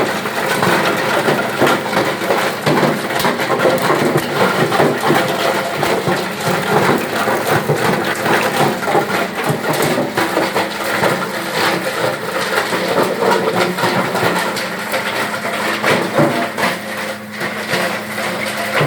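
Wood crusher machine running and breaking up wood, a dense continuous crackling and clattering over a steady motor hum.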